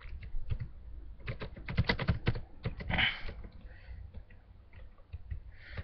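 Typing on a computer keyboard: irregular runs of keystrokes, with a fast cluster between about one and two and a half seconds in.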